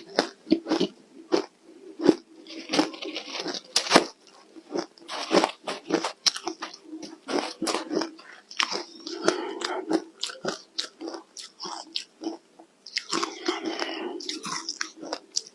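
Ice being bitten and chewed close to the microphone: dense, irregular crunches and crackles one after another, with short pauses between bites.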